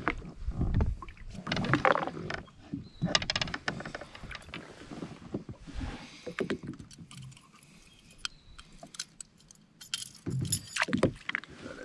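A freshly caught pike being landed and unhooked: irregular water splashes and knocks with many short clicks and clinks, busiest near the start, about two seconds in, and again near the end.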